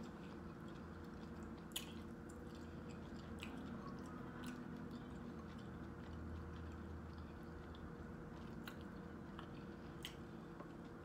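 Faint chewing of a mouthful of green mussel, which is kind of chewy, with a few short, scattered clicks over a low steady hum.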